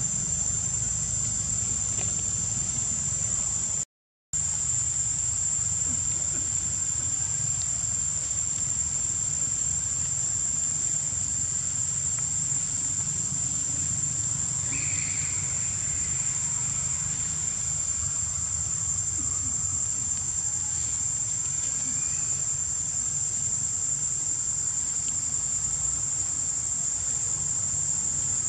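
Steady high-pitched insect chorus over a low rumble, cutting out for a moment about four seconds in. A short falling chirp sounds about halfway through.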